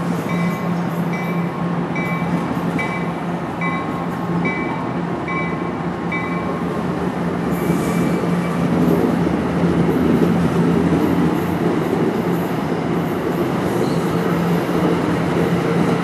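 NJ Transit Multilevel double-deck coaches rolling past as an ALP-46-hauled train pulls into the station, with a steady hum and wheel-and-rail rumble that grows louder about halfway through. A ringing tone repeats about once a second for the first six seconds, then stops.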